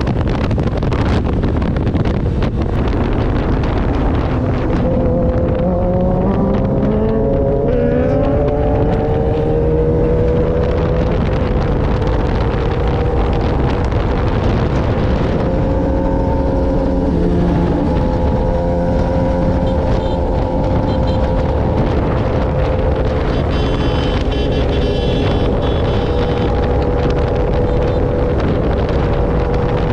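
Large motorcycle being ridden at steady speed, its engine running under heavy wind rumble on the microphone, the engine pitch drifting slightly up and down.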